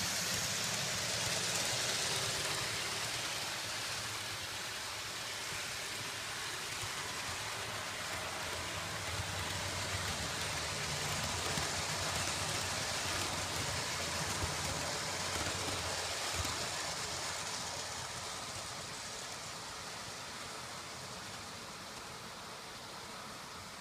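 Model Class 66 locomotive and its coaches running along the track, a steady rushing noise with a faint low motor hum. It is loudest as the coaches pass close by and gets fainter over the last several seconds as the train runs off around the curve.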